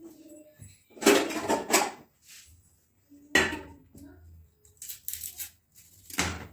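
Dishes and utensils clattering and clinking as they are handled and put away, in four separate bursts, the loudest about a second in.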